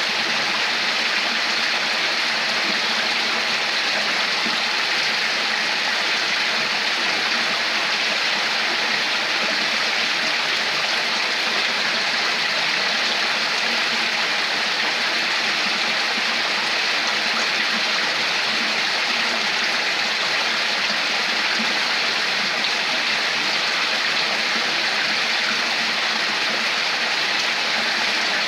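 Running water flowing steadily, a continuous even rush and gurgle of a stream with no change throughout.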